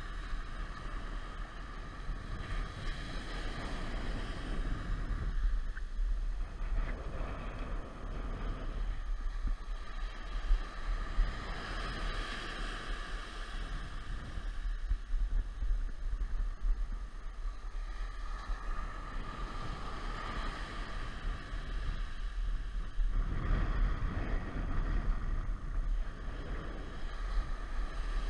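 Ocean surf breaking and washing up a sandy beach, swelling and falling back every few seconds, with a low rumble of wind on the microphone.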